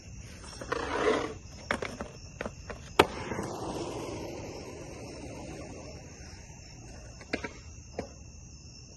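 Skateboard on a concrete quarter pipe: the board scrapes loudly on the coping about a second in, knocks a few times, then slaps down with a sharp loud clack about three seconds in. Its wheels then roll away across the concrete and fade. Crickets chirp steadily throughout.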